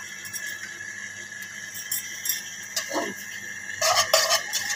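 A spatula scraping and squeaking against a nonstick wok as it spreads melting ghee, loudest in the last second, over a faint steady hiss. A short falling squeak comes just before.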